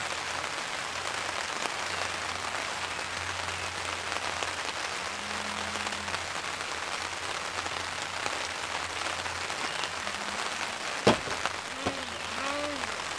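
Steady rain pattering on a canvas camping tarp overhead, with a single sharp knock about eleven seconds in.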